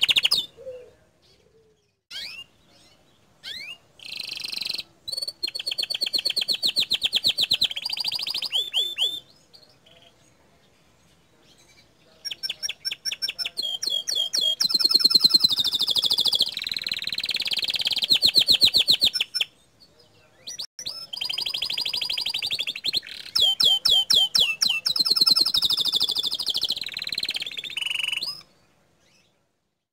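Domestic canary singing long phrases of fast rattling trills and chirps, the rapid bursts that keepers call 'tembakan'. Three phrases are broken by pauses of a couple of seconds.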